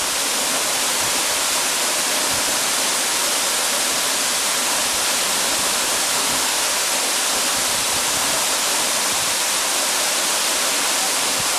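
Waterfall crashing: a loud, steady rush of falling water with no break.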